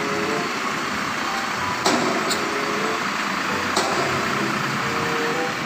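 Fuel tanker truck's diesel engine running as the truck slowly turns, a steady engine noise. Three sharp clicks are heard, two close together about two seconds in and one near four seconds.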